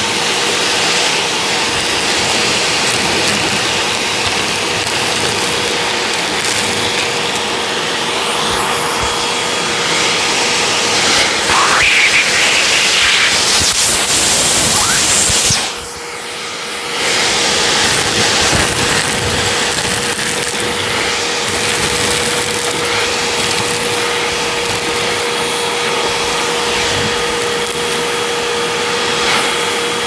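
Hoover vacuum cleaner running steadily with a constant motor whine as it picks up scattered debris from a rug. The sound dips briefly about halfway through, then comes back to full strength.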